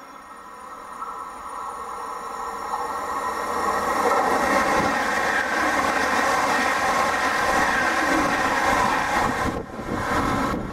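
A Pendolino electric tilting train (ČD class 680) passing close by on the platform track. Its sound grows louder over the first few seconds, then holds a steady whine over the rush of wheels on rail, and drops sharply near the end as the train's end goes by.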